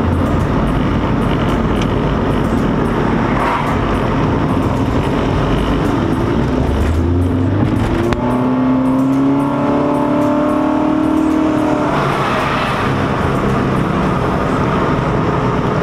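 Car driving on a highway, heard from inside the cabin: steady road and engine noise. An engine note rises gradually for several seconds in the middle as it speeds up.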